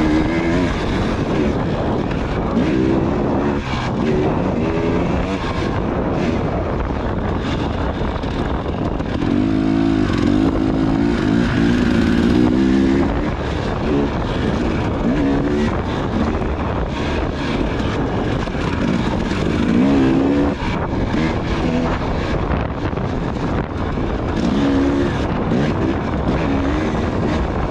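Off-road racing motorcycle engine revving up and down over and over as the rider opens and closes the throttle through the course, over a steady rushing noise.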